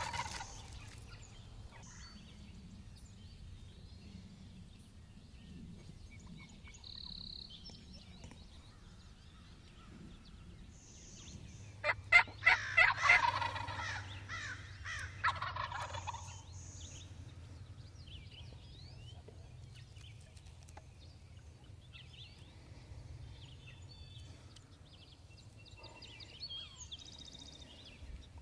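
A wild turkey gobbler gobbles loudly, a rapid rattling gobble about twelve seconds in, followed by a weaker one a few seconds later. Faint songbird calls can be heard in the background.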